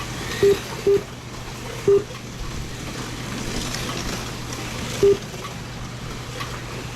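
Race lap-counter system beeping: four short, identical electronic beeps at uneven intervals, three close together early and one about five seconds in. Under them runs a steady low hum of the added car engine sound.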